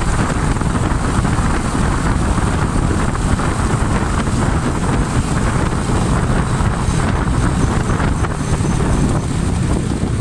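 Honda Splendor NXG 100 cc motorcycle's single-cylinder four-stroke engine running at steady road speed, mixed with steady wind rush on the microphone.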